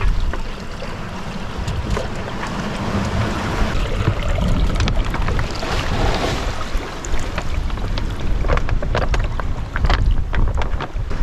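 Wind buffeting the microphone and sea rushing along a sailing yacht's hull in rough open-ocean conditions, with a swell of water about six seconds in and scattered sharp knocks in the second half.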